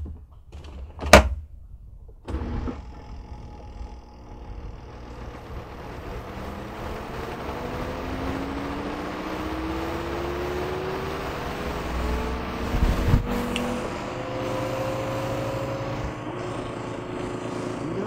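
Panda XPB45 twin-tub washer's spin dryer: two sharp knocks as the spin-tub lid is shut, then the spin motor starts and runs, its whine rising slowly and steadily in pitch as the basket with wet laundry gathers speed. One sharp click about 13 seconds in.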